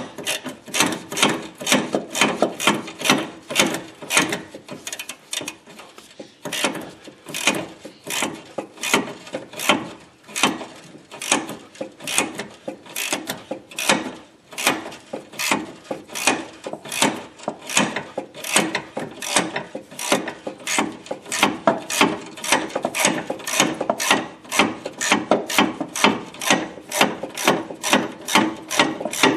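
Ratcheting wrench clicking steadily as it backs off a freshly loosened sway bar link nut, a couple of clicks a second.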